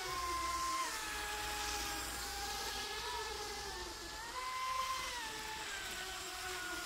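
Motors of two radio-controlled speedboats whining steadily at speed, their pitch stepping up and down a few times as the throttle changes.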